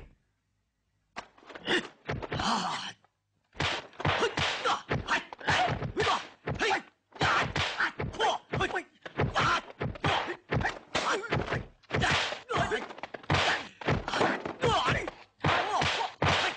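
Kung fu film fight sound effects: after about a second of silence, a rapid run of dubbed punch-and-block impacts, sharp whacks and thuds coming two or three a second with hardly a pause.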